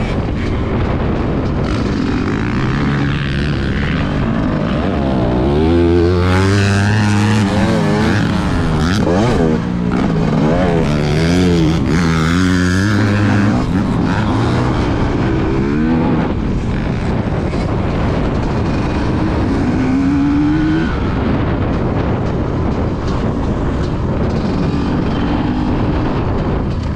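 Dirt bike engine heard from the bike itself, revving up and down repeatedly as it rides the track, under a steady rush of wind noise on the microphone.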